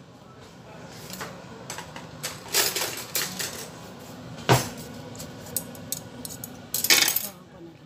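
Clinks and clatters of kitchen utensils against a stainless steel pot and a plate, with a scattering of small knocks, a sharp one about halfway through and a louder clatter near the end.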